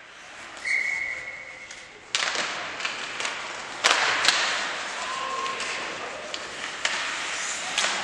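Ice hockey play: skates scraping the ice and sharp clacks of sticks and puck, loudest about four seconds in.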